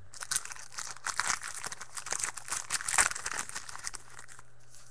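Foil trading-card pack being torn open and crinkled by hand: a dense crackling that is loudest about three seconds in and dies away near the end.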